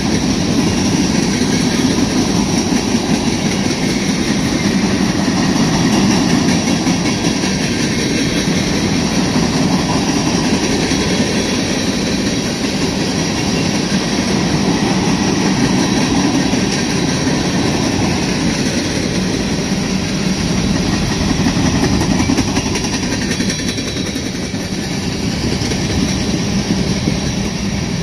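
Freight cars of a manifest train (tank cars and covered hoppers) rolling past close by: a steady, loud rumble and clatter of steel wheels on the rails.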